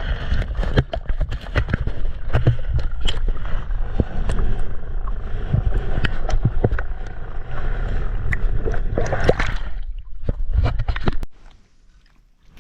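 Water sloshing and splashing close to the microphone, with a heavy low rumble and many small knocks and splashes, as someone moves through shallow water. It stops abruptly near the end.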